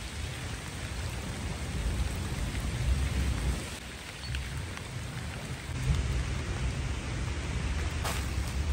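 Steady rain falling on wet pavement and puddles, with a low, uneven rumble underneath that swells a couple of times.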